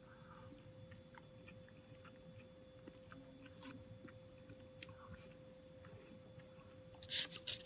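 A person quietly chewing a spoonful of a grain, black bean and corn meal, with small scattered mouth clicks over a faint steady hum. A brief louder noise comes about seven seconds in.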